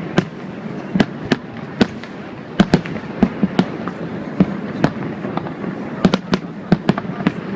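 Fireworks display: a quick, irregular run of sharp bangs and cracks from shells bursting, a couple or more each second, over a steady background noise.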